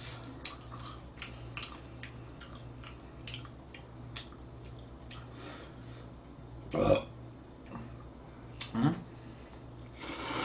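Close-up eating sounds: chewing and wet mouth clicks while eating spaghetti, with two louder short mouth sounds in the second half and a noisy slurp of noodles near the end.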